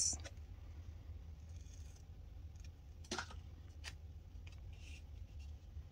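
Small scissors cutting a paper sticker in half: a couple of short, sharp snips about three and four seconds in, with faint paper rustling, over a steady low hum.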